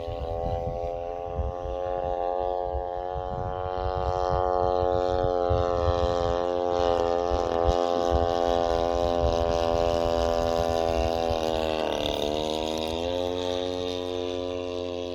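40cc two-stroke boxer engine of an RC plane running steadily in flight, its pitch dropping briefly and rising again about twelve seconds in. Wind buffets the microphone throughout.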